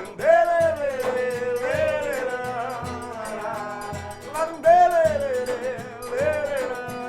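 Forró pé-de-serra band playing an instrumental passage: low zabumba drum beats about twice a second and steady triangle ticks under a melody that slides and bends in pitch.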